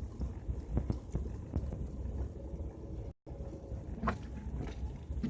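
Low, steady rumble of a car driving on a snowy road, heard from inside the cabin, with a few faint knocks. The sound cuts out completely for an instant a little after three seconds in.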